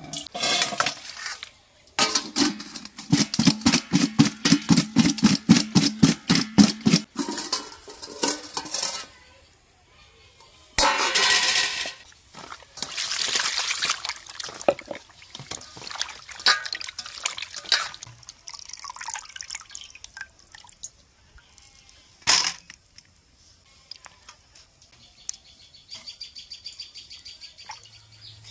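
Cut fish pieces being washed by hand in a steel bowl: water from a plastic can splashes in, and hands slosh and rub the fish, with a run of quick wet strokes lasting about five seconds. Birds chirp faintly near the end.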